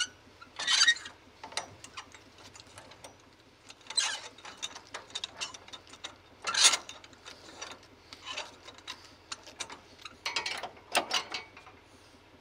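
Irregular metal clicks and rattles as a trailer is hooked up to a drop hitch, coming in short bursts a few seconds apart: trailer hardware and safety chains being handled, the chains rattling near the end.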